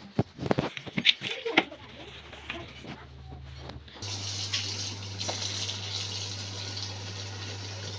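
A few sharp clicks and knocks, then about halfway through a kitchen tap comes on and water runs steadily into a ceramic bowl held in a stainless steel sink.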